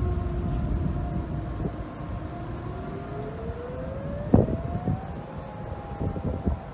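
Several outdoor tornado warning sirens wailing at once, sounding for a tornado warning, with their pitches sliding at different rates. One falls slightly, then rises steadily, while others hold higher notes over a low rumble. A single sharp knock comes a little past the middle.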